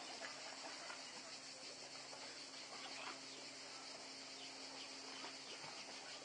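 A faint, steady, high-pitched chorus of insects in the summer trees, with a few scattered faint short sounds under it.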